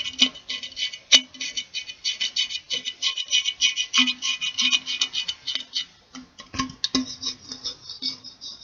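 Fingers tapping rapidly on a metal can, about seven taps a second, each tap ringing with the can's tone. A couple of heavier knocks come just before the last couple of seconds, after which the taps ring higher.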